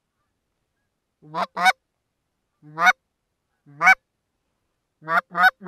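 Goose honking: short two-part honks, each breaking from a low note up to a higher one. Two come close together about a second and a half in, single honks follow near three and four seconds, and a quick pair comes near the end.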